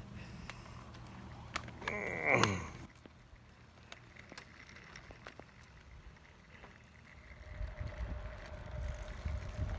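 Recumbent trikes riding off on a paved trail. About two seconds in comes a short squeal that falls steeply in pitch. From about seven and a half seconds, low wind buffeting and tyre rumble set in as the camera's trike gets rolling, with a faint steady whine.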